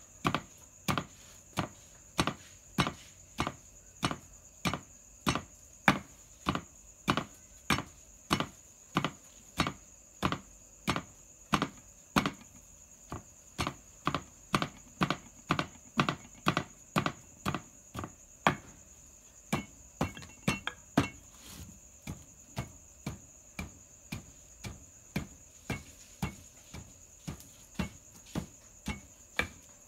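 Long wooden pestle pounding into a clay mortar in steady strokes, about two a second.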